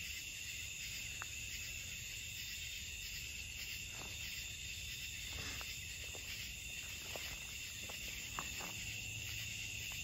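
Steady night chorus of crickets and other insects, a constant high-pitched trilling in several layers, with a few faint steps and snaps on leaf litter and twigs.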